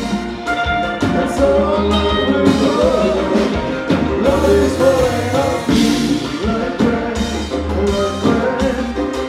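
Live kompa band playing: a man singing into the microphone over keyboards, electric guitar and drums, with a steady low bass pulse.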